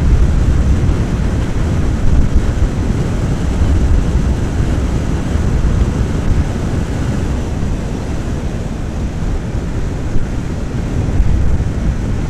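Motorcycle riding at speed: heavy wind rushing and buffeting over the microphone, with road and engine noise beneath it.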